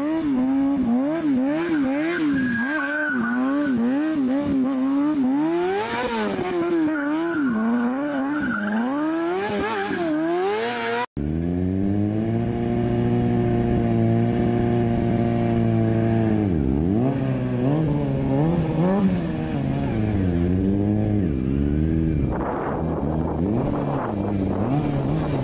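Sport motorcycle engine revving up and down in quick throttle blips during stunt riding. After a cut about 11 seconds in, it holds steadier high revs with a brief dip, as the bike is held up in a wheelie.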